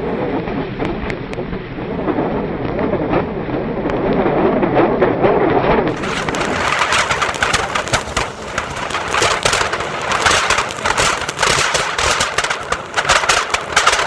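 Anar fountain fireworks burning with a dense hiss and crackle. About halfway through the sound changes abruptly, and sharp crackles become frequent.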